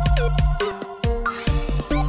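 Background electronic dance music with a steady drum beat and held bass notes; the beat drops out briefly near the middle, then a rising swoosh leads back in.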